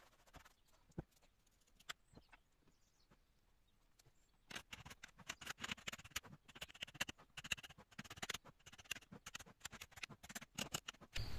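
A few faint taps. Then, from about four and a half seconds in, quick gritty scratching as a flat metal bar scrapes loose moulding sand from the face and edges of a sand-casting flask around the gear pattern.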